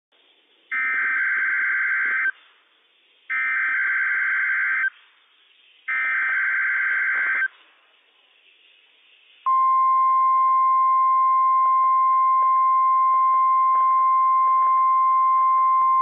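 NOAA Weather Radio Required Weekly Test. Three identical bursts of SAME header data tones sound, each about a second and a half long with short gaps between. About two seconds after the last burst, the steady single-pitch 1050 Hz warning alarm tone begins and holds.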